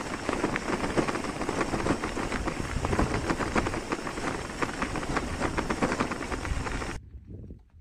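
Loaded touring bicycle rolling over a rough dirt track: a steady rumble of tyres on the ground with a constant patter of small knocks and rattles from the bike. It cuts off abruptly near the end.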